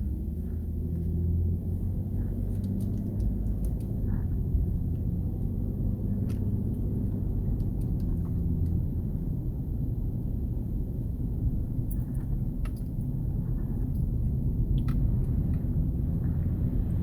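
Vehicle engine running with a low, steady rumble, with light clicks and rattles over it.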